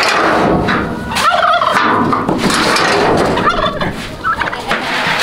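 Turkey gobbling twice, about a second in and again past three seconds, over the clatter of a metal stock trailer's gate and floor.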